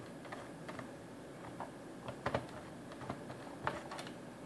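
Hand screwdriver turning a screw out of the plastic underside of a Linksys SPA942 VoIP phone: scattered light clicks and ticks, with a sharper double click about halfway through.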